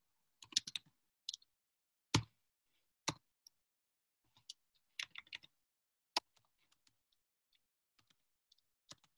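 Typing on a computer keyboard: keystrokes come in short irregular bursts with pauses between them, and one heavier keystroke about two seconds in is the loudest.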